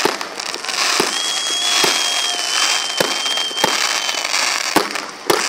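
Fireworks display: about seven irregular bangs from bursting shells over continuous crackling, with a thin high whistle held for about three seconds in the middle.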